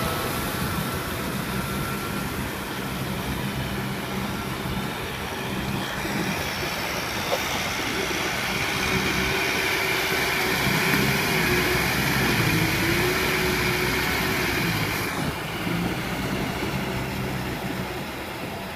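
Kubota M6040SU tractor's diesel engine running steadily under load as it pulls a rotary tiller through flooded paddy mud.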